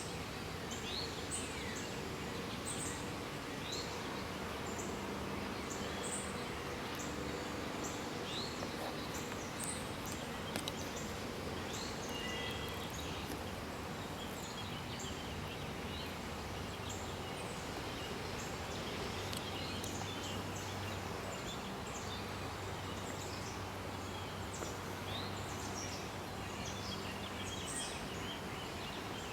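Outdoor ambience: many short bird chirps and calls scattered through a steady background hiss, with a faint low hum underneath.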